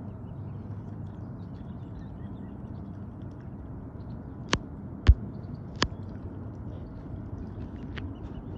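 Mute swans and cygnets feeding at the water surface, with faint dabbling ticks over a steady low rumble. Three sharp clicks come close together a little past the middle, the second the loudest, and a weaker one follows near the end.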